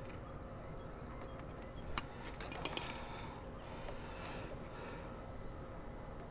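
Hand crimping tool and wire being worked: one sharp click about two seconds in, followed by a few lighter clicks and soft rustling as a ring terminal and wire are handled.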